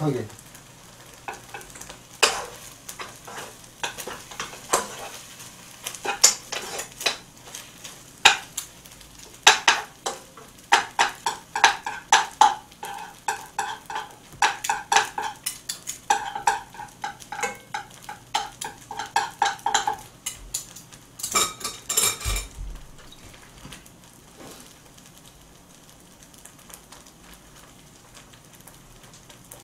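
Metal spoon stirring, scraping and tapping fried rice in a wok over a portable gas burner, with the rice sizzling. The strokes come thick and fast with a ringing metallic tone from about ten to twenty seconds in, a final flurry ends in a low knock a little after twenty seconds, and then only a soft sizzle remains.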